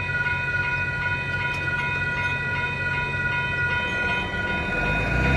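Railroad grade-crossing warning bell ringing steadily while the crossing gates lift, over the low rumble of the freight train that has just passed.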